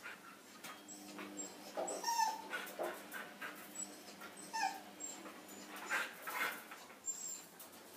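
Huskies whimpering and whining in short, scattered cries, one of them falling in pitch about halfway through.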